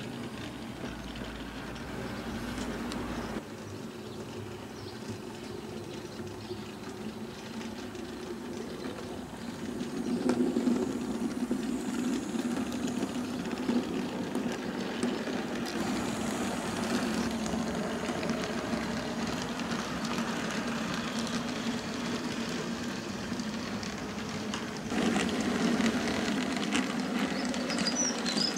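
OO gauge model train running on the layout's track: a steady electric-motor hum with wagon wheels rolling and rattling over the rails, growing louder about a third of the way through.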